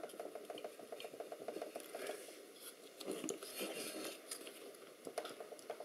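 Faint scraping and small clicks and knocks of metal parts as a small electric motor is wiggled loose, a little at a time, from an aluminium actuator housing.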